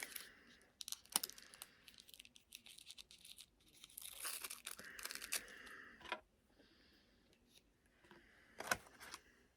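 A biscuit being torn apart by hand: faint tearing and crinkling noises with scattered small clicks, a longer stretch of it about four to five and a half seconds in and a short burst near the end.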